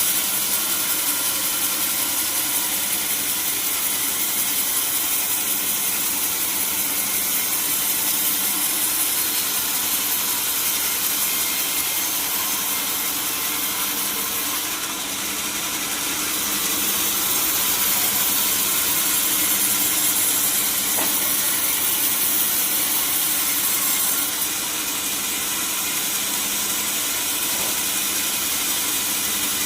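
Sawmill saw running steadily through a teak log, a constant high hiss over a machine hum, dipping briefly about halfway through.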